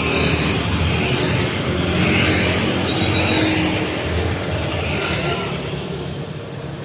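Busy road traffic: motorcycles and scooters passing close one after another, engine and tyre noise swelling and fading with each pass.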